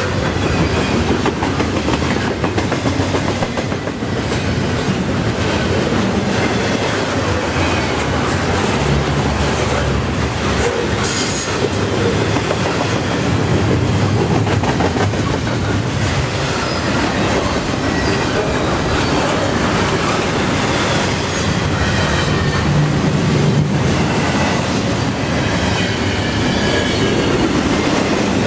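Double-stack container well cars of a long freight train rolling past at speed: a steady rumble of steel wheels on rail with wheel clatter, and faint wheel squeal coming and going high above it.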